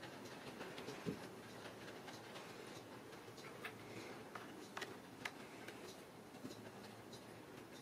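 Faint, scattered clicks and scratches of kittens' claws and paws on a plastic hamster ball, with a sharper knock about a second in.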